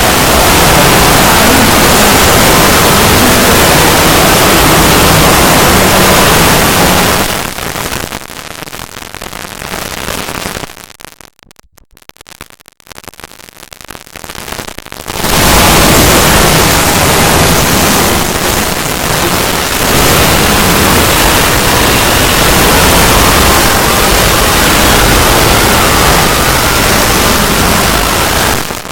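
Very loud, harsh static-like noise filling every pitch at once. About a third of the way in it drops to a quieter level, nearly dies away for a few seconds, then comes back at full strength.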